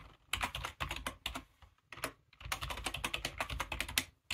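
Typing on a computer keyboard: two quick runs of keystrokes with a short pause of about half a second between them, a password typed and then typed again to confirm it.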